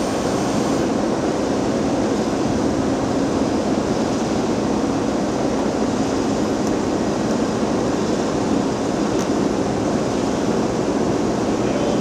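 Heavy diesel road-construction machinery at an asphalt paving site running steadily, a loud, even engine noise that does not change.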